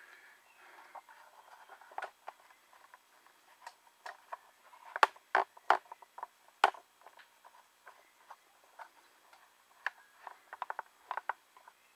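Scattered clicks and knocks of a camera and its mount being handled and repositioned, with a few sharper knocks about five to seven seconds in and a quick run of clicks near the end.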